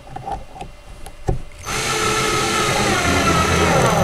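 Cordless drill driving a long wood screw through a wooden post into a chair arm: a few light handling clicks, then the drill motor starts about halfway through and runs steadily with a wavering whine.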